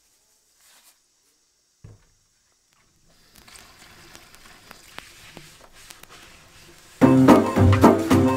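Near silence, then from about three seconds in a faint stream of tap water splashing onto a plastic tray. Loud upbeat music with piano and guitar comes in about a second and a half before the end.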